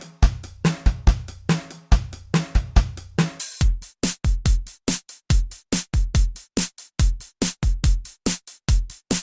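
Electronic drum-machine beat playing: kick, snare and hi-hat in a steady groove. About three and a half seconds in it changes to a different beat with deep, booming kicks and quick, bright hits.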